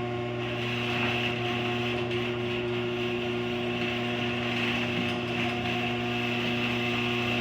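LiftMaster 8365 chain-drive garage door opener running as it lowers the door: a steady motor hum with the chain drive working, a little noisy.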